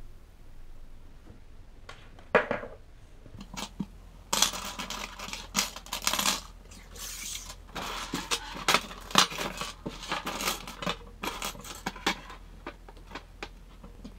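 Vintage Meccano metal parts clinking and clattering as they are handled and set down on a table: many light metallic clinks and knocks, starting about two seconds in and thickest through the middle.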